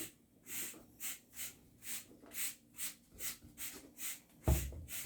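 A steady run of short, soft swishes, about two a second, with one low thump about four and a half seconds in.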